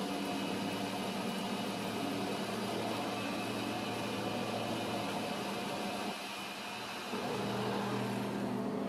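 Metal lathe running, turning a hard iron bar with its cutting tool: a steady motor and gearbox hum with a hiss above it. About six seconds in it drops briefly, then comes back with a stronger low hum.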